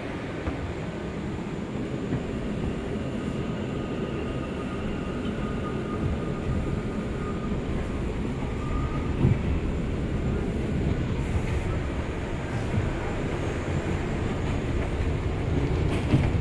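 Inside an R179 subway car running along the elevated line: a steady rumble of wheels on rails with a faint high whine, slowly growing louder.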